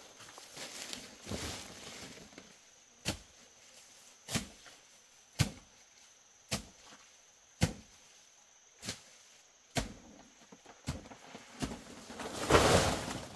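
Steady chopping: a blade strikes into wood about once a second, each blow a sharp knock. Near the end comes a louder, longer rustling swish.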